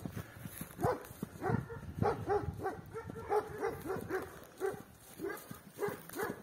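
A dog barking in a rapid string of short yaps, about three a second.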